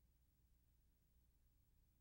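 Near silence: only a faint steady low hum and hiss of the recording's noise floor.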